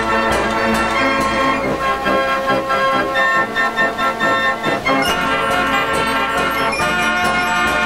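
Fairground organ playing a tune, its pipes sounding steady sustained chords. The bass thins out a few seconds in and comes back in strongly about five seconds in.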